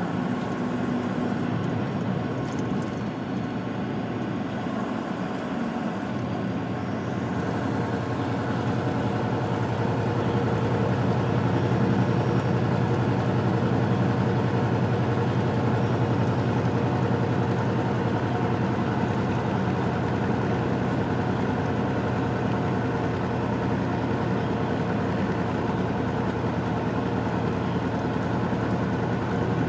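A heavily loaded semi-truck's diesel engine running as the truck drives, heard from inside the cab. The engine works harder and grows louder from about six seconds in, then holds steady.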